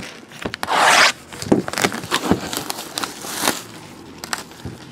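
Plastic packaging crinkling and scraping as a large photograph is handled and pulled out. Two longer stretches of rustling come about a second in and again near three and a half seconds, with scattered clicks between them.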